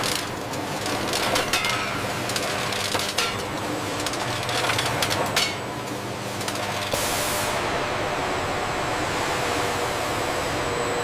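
Factory machinery running with bursts of clattering and rattling, changing to a steadier machine hiss about seven seconds in.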